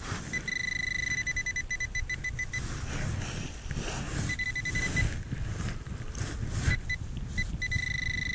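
Handheld metal-detector pinpointer sounding a high, steady alert tone that comes and goes, at times breaking into rapid pulses, as its tip is worked through loose soil, signalling metal close by. Wind rumbles on the microphone, with scrapes of soil under it.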